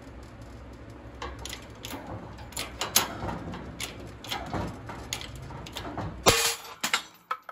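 A steel U-joint on a Jeep Cherokee XJ front axle shaft is being forced out of its yoke in a shop press. Under load it gives a series of sharp cracks and pops at uneven intervals. The loudest bang comes about six seconds in, as the bearing cap lets go all at once, with a few more pops right after.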